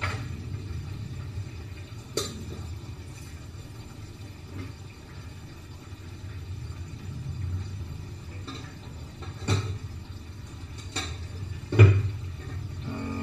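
Dishes and kitchen utensils clinking and knocking as they are handled, a few separate strikes with the loudest near the end, over a low steady rumble.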